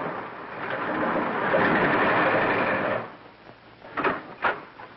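A car's engine and running noise, a loud, even rush that cuts off abruptly about three seconds in. A quieter room follows, with a couple of short knocks near the end.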